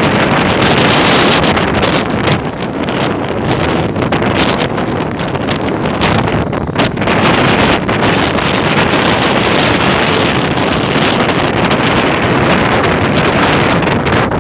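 Ocean surf and wind, a dense steady rush with wind buffeting the microphone.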